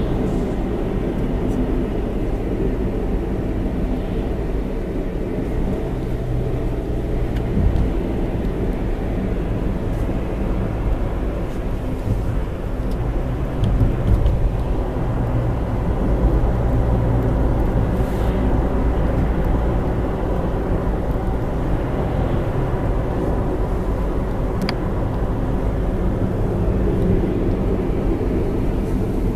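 A car's engine and road noise heard from inside the moving car: a steady low drone.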